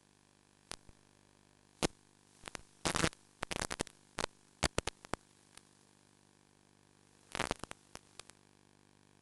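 Static from an analog FPV video link: a steady faint hiss and hum broken by sharp crackling pops, which come in a thick cluster about three seconds in and again past seven seconds.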